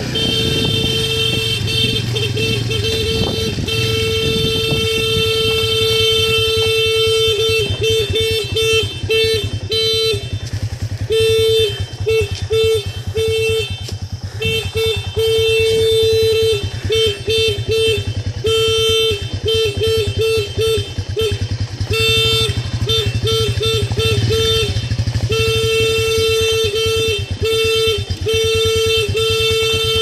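Motorcycle horn honked over and over, in long blasts and quick strings of short beeps, over the steady running of the motorcycle's engine.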